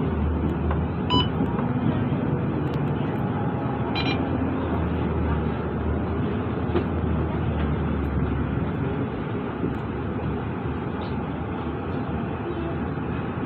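Cabin noise inside a Mercedes-Benz Citaro diesel bus under way: a steady low engine drone with road noise that eases after about nine seconds as the bus slows toward a stop. A short beep sounds about a second in and a brief ringing tone around four seconds.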